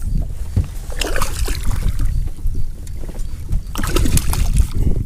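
Wind buffeting the microphone of a chest-mounted camera in an open boat, a steady low rumble, with two brief bursts of noise about a second in and near four seconds.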